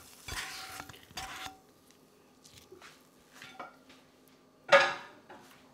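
Utensil scraping scrambled eggs and bacon out of a nonstick frying pan, a few short scrapes in the first second and a half, then quiet handling and one loud clunk of cookware near the end.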